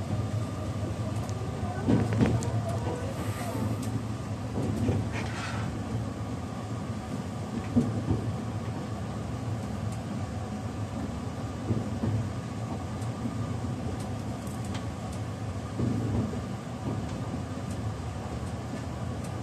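Interior running noise of an E653 series electric limited express train: a steady low hum and rumble, with the faint whine of its IGBT-VVVF inverter motors and a few light knocks.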